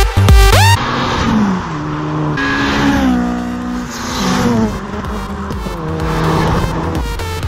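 Cars driving past one after another, each engine note falling in pitch as it passes. Electronic dance music with a heavy beat cuts out just under a second in and carries on faintly underneath.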